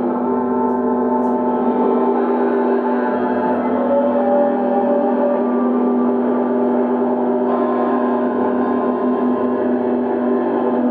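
Ambient drone music of gong-like ringing tones: many steady tones held and overlapping without a beat, the low ones strongest, with the blend shifting slightly a couple of times.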